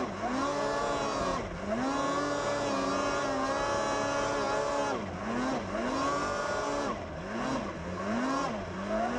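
Snowmobile engine revving up and down as the sled is ridden through snow, heard up close from the front bumper. The pitch climbs, holds and drops in long swells at first, then rises and falls more quickly, about once every second or less, in the second half.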